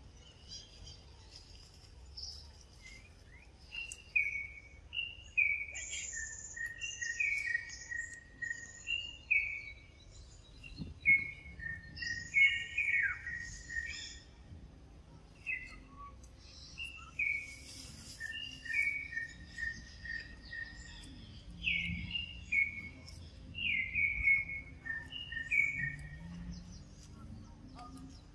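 Forest songbird singing: repeated phrases of short, clear whistled notes that step down in pitch, coming every couple of seconds, with fainter high chirps from other birds.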